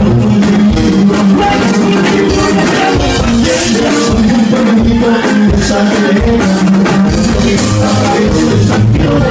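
Rock music with guitar and drums, playing steadily and loud.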